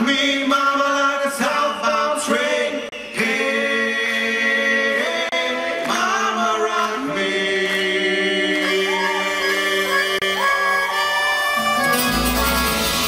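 Music: held, sliding vocal harmonies with no clear words, and a band with strummed guitar and bass coming in about twelve seconds in.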